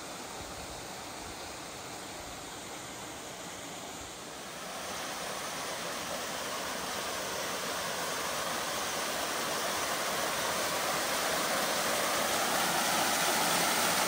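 Small waterfall spilling down a rock face onto stone: a steady rush of falling water that grows louder from about five seconds in as it comes nearer.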